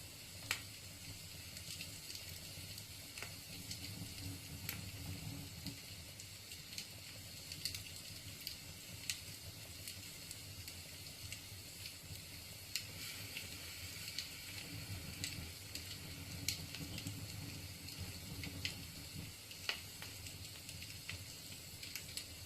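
Wood fire burning in a fireplace: the logs crackle with irregular sharp pops over a steady low rumble and hiss of the flames.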